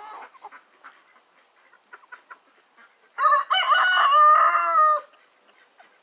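A rooster crows once, a loud crow of about two seconds in three joined parts, starting about three seconds in. Before it, chickens cluck softly.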